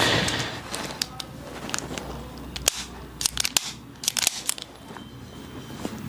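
Irregular sharp clicks and crackles, bunched into quick runs in the middle, from handling and body movement during a chiropractic treatment.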